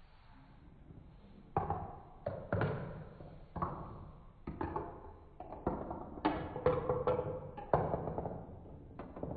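Marbles running down a Trix Tracks marble run: an irregular series of sharp knocks and clatters as they drop onto and strike the plastic track pieces. The knocks start about a second and a half in and go on until near the end.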